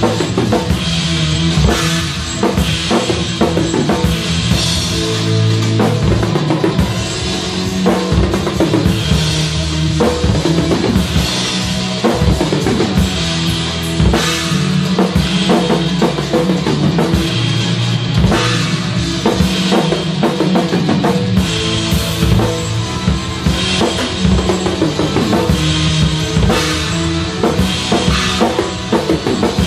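Acoustic drum kit played hard and fast through a rock song, with kick drum, snare and cymbal hits packed close together. Sustained pitched notes from the song's other instruments run underneath the drums.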